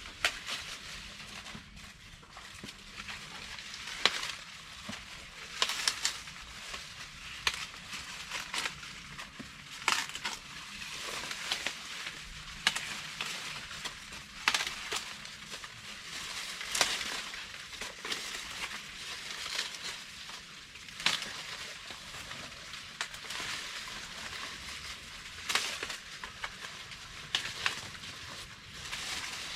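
Dry corn plants rustling and crackling as ears are picked by hand, with irregular sharp snaps throughout.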